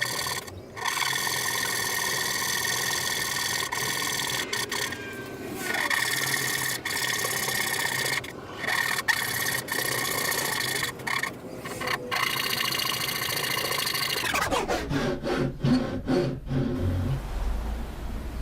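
A saw cutting into hardwood: a steady rasping cut with a few brief breaks. About fourteen seconds in its pitch falls away as the cut stops, and some lower knocking and handling sounds follow.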